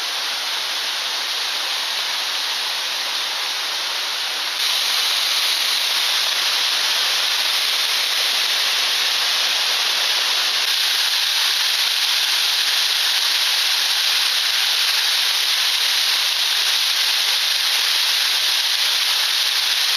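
Waterfall on a mountain stream pouring steadily, a dense rushing hiss of falling water that steps up in loudness about four and a half seconds in.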